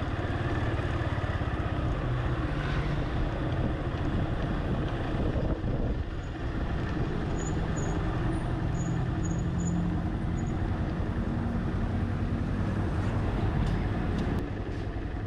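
Car driving slowly along a street: steady engine hum and road noise heard from inside the car, with a few faint high chirps in the middle.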